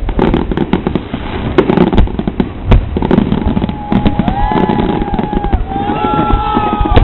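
Aerial fireworks display: a rapid run of bangs and crackles from bursting shells, with several drawn-out whistling tones joining in from about halfway through.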